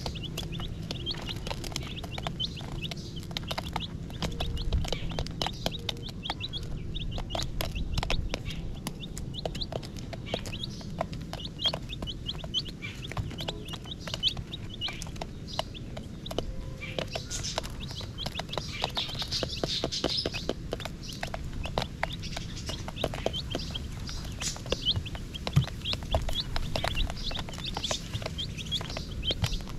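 A group of baby chicks peeping, many short, high peeps overlapping without a break and busiest about two-thirds of the way through.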